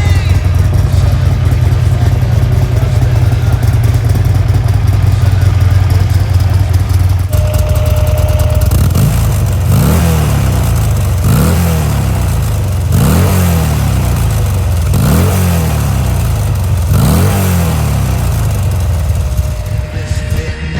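Buell Lightning XB12S's air-cooled V-twin running at a steady idle through a Termignoni titanium twin-outlet exhaust. From about nine seconds in it is blipped six times, roughly every two seconds, each rev falling back to idle.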